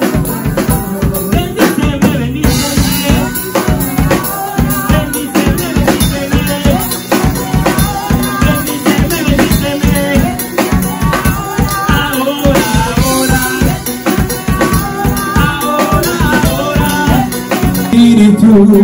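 Upbeat music with a drum kit keeping a fast, steady beat under a melody.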